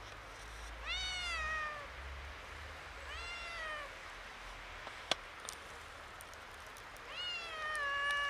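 Kitten meowing three times, each meow rising then falling in pitch, the last one longer than the others. A single sharp click about five seconds in.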